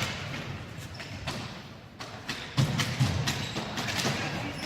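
A run of sharp knocks and thumps, like ball hockey sticks and a ball striking the floor and boards, with music playing.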